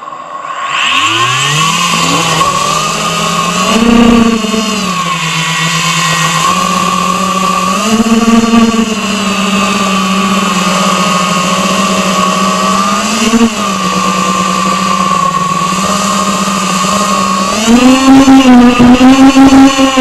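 Eachine Wizard X220 racing quadcopter's brushless motors and propellers spooling up from rest about a second in, then a steady buzzing whine as it lifts off and flies. Pitch and loudness swell briefly with throttle punches, and near the end the whine goes louder and wavering under hard throttle changes.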